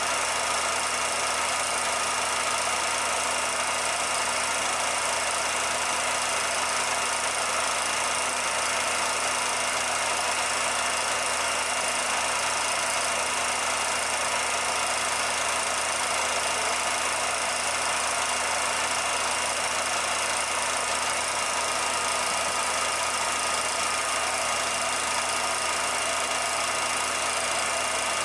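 Steady whir and hum of a 16mm film projector running; the film itself is silent, so no locomotive sound is heard.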